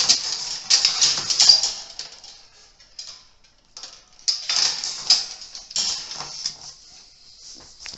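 Metal antenna hardware being handled during assembly: irregular rattling and clicking of bolts, washers and brackets. There are two spells of it, one in the first two seconds and another about four to six and a half seconds in, with a quieter gap between them.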